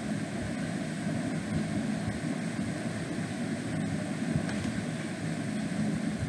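Steady low background noise with no distinct events, and a faint click about four seconds in.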